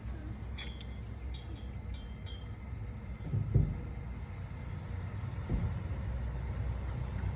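Insects chirping steadily in a quick, even rhythm over a low rumble, with two dull thumps about three and a half and five and a half seconds in.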